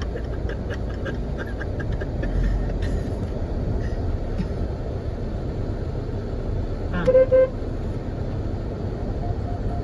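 Car driving slowly on a sandy dirt track, heard from inside the cabin as a steady low rumble of engine and tyres, with two short blasts of a car horn about seven seconds in.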